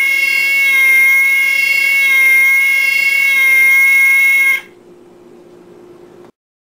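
A loud, steady buzzing tone held at one unchanging pitch that cuts off abruptly about four and a half seconds in. A faint low hum follows and stops about a second and a half later.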